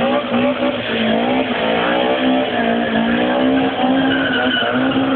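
Drift car's engine held at high revs, its note rising and dipping with the throttle as the car slides sideways, over the hiss of skidding tyres.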